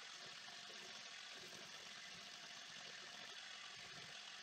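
Bench grinder motor running with a steady whir, with a steel chisel being ground against its spinning abrasive wheel.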